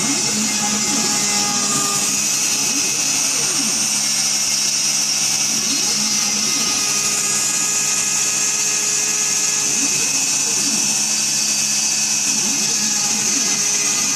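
Home-built desktop CNC machine running: a steady motor hum and hiss, with whines that rise and fall in pitch every few seconds as the axes move.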